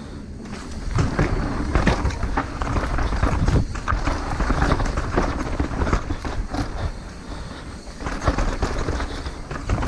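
Mountain bike being ridden down a rough trail: the tyres rumble and the bike rattles and knocks over rocks and roots. The clatter gets louder about a second in.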